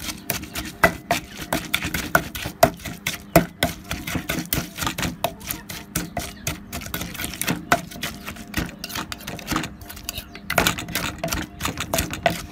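Rapid, slightly irregular sharp knocks, several a second, from preparing pounded green-papaya salad: a knife hacking a green papaya or a pestle pounding in a mortar. The knocks sit over a faint steady hum.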